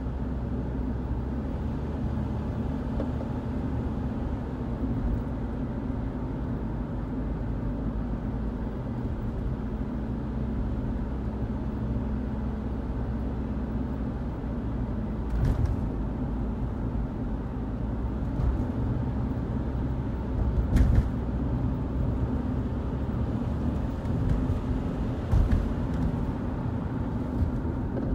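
Car driving, heard from inside the cabin: a steady low engine and road rumble, with a few brief knocks about halfway through and near the end.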